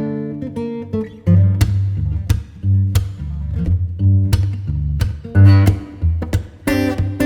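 Background music led by plucked acoustic guitar, with low bass notes beneath, in a steady rhythm.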